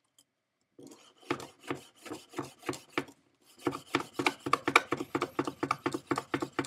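Stainless steel straight-edge knife sawing back and forth across a rope on a cutting board: rhythmic rasping strokes that start about a second in, pause briefly about three seconds in, then come faster, about four a second. The plain edge is not getting through the rope.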